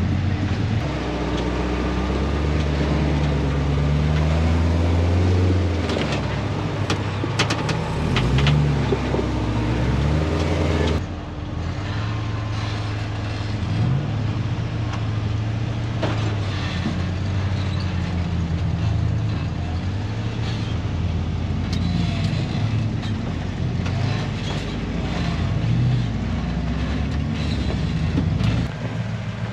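Off-road truck engines running at low speed, the pitch rising and falling as the throttle is worked, with a few sharp knocks about seven to nine seconds in.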